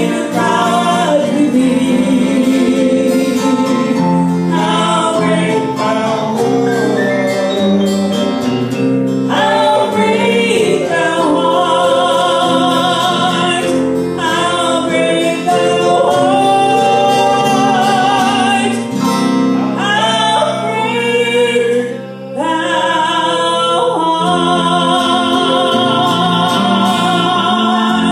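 A woman singing a slow hymn with wide vibrato on held notes, accompanied by a strummed acoustic guitar.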